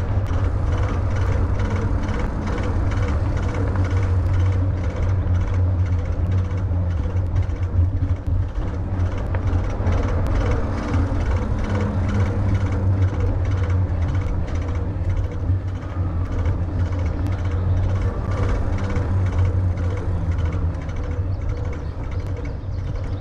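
Steady low rumble of wind buffeting the microphone during an eBike ride, mixed with tyres rolling on asphalt.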